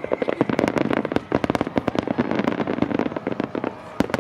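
Aerial firework shells bursting in a rapid, dense barrage. Many sharp bangs a second run together over a continuous crackling rumble.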